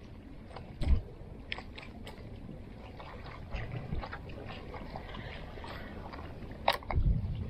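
Small clicks and taps of a spinning rod and reel being worked, over quiet water noise around a small boat, with two low thumps about a second in and near the end.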